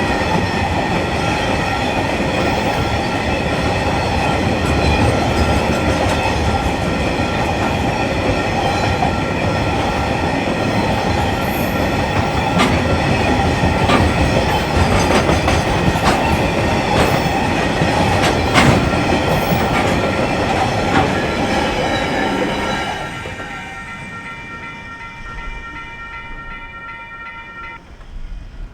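Freight wagons rolling past, wheels clicking over rail joints with a steady rumble, until the last wagon clears about three-quarters of the way in and the noise falls away. A steady high-pitched ringing tone runs throughout and stops suddenly a few seconds after the train has passed.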